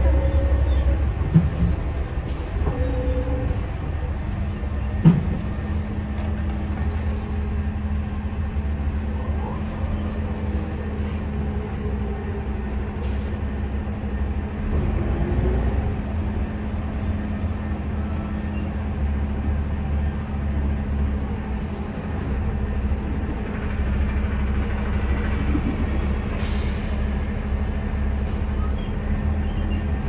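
Inside the cabin of a 2006 NABI 40-LFW CNG transit bus under way: its Cummins Westport C Gas Plus natural-gas engine and Allison B400R automatic transmission running with a steady low rumble, a steady drone setting in about four seconds in. Two sharp knocks sound about a second in and again about five seconds in, and a brief hiss comes near the end.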